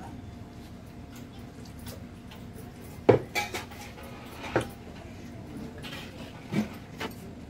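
Stainless steel tumblers and plates knocking and clinking on a table during a meal. There is a sharp clank about three seconds in, then a few lighter knocks.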